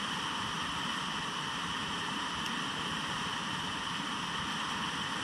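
Steady roar of a large waterfall and rushing white-water river, heard muffled through a camera's waterproof case.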